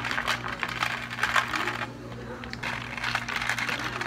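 Ice cubes poured from a plastic scoop into two plastic cups of iced latte, clattering and clinking in two spells, one cup after the other. A steady low hum runs underneath.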